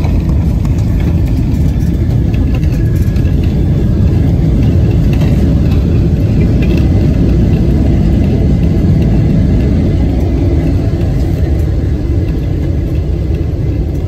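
Jet airliner rolling fast along a runway, heard from inside the passenger cabin: a loud, steady low rumble of engines and wheels that eases slightly near the end.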